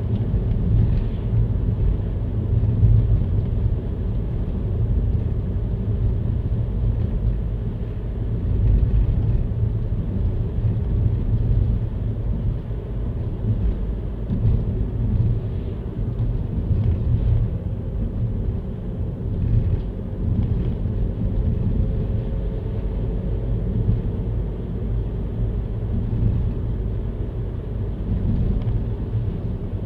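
Steady low rumble with no distinct events, heaviest in the bass.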